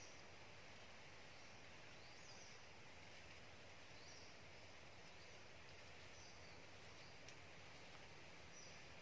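Near silence: faint outdoor ambience with a quiet, high, short chirp repeating every second or two.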